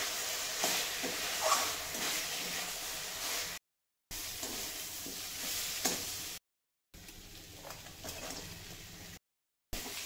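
Metal spatula stirring and scraping pieces of taro and potato around a steel kadhai as they fry in oil with spice powders, with light knocks against the pan over a steady sizzle. The sound cuts out briefly three times.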